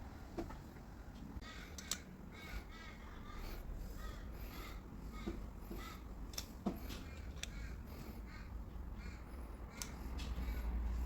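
Faint bird calls repeated a few times, crow-like caws, with scattered light clicks and taps.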